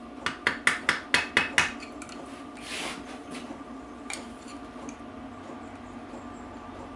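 About seven quick, light metallic taps in the first two seconds: a hammer tapping a part in the BSA B25 gearbox casing to seat it. A short scrape follows, then a single click.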